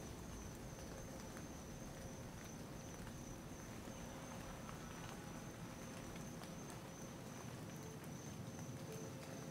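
Quiet woodland after rain: a steady high-pitched insect trill over a soft background hiss, with scattered faint ticks and taps.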